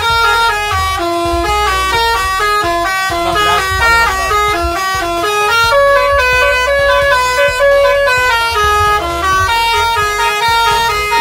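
Bus 'telolet' multi-tone air horn playing a fast tune of stepped notes over a low rumble.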